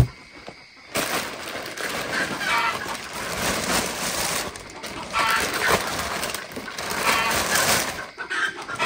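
Chickens clucking, short calls a second or two apart over a steady rustling, noisy background, after a sharp click at the very start.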